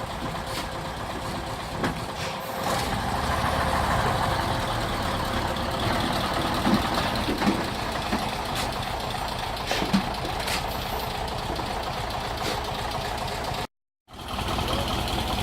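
A truck's engine running steadily, getting louder about two and a half seconds in. The sound cuts out briefly near the end.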